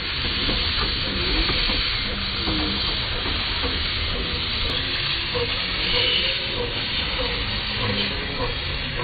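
A 5-inch gauge miniature steam locomotive steadily hissing as steam escapes from around its cylinders.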